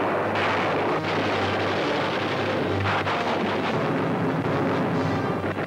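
Newsreel battle sound effects: a steady loud roar of aircraft engines and gunfire over a low drone, with louder bangs just after the start and about three seconds in.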